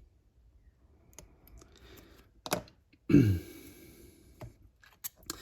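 Light clicks and taps of small plastic model-kit parts and tools being handled, with one sharper click about two and a half seconds in.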